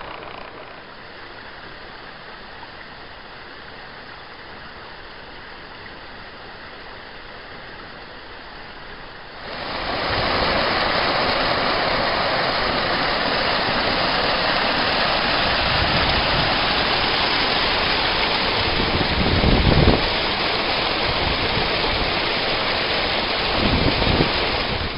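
Water pouring over a small stone weir into a pool: a loud, steady rushing splash that starts abruptly about ten seconds in, with a couple of low bumps near the end. Before it, a quieter steady hiss.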